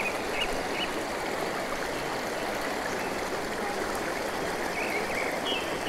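A fast-flowing, clear creek running over rocks and small stone drops: a steady rushing babble of water.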